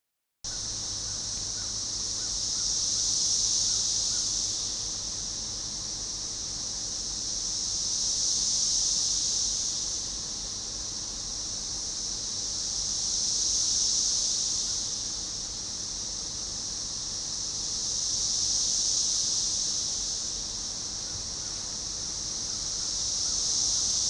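Chorus of 13-year Cassini periodical cicadas (Magicicada tredecassini) calling in sync, a high buzzing that swells and fades in waves about every five seconds.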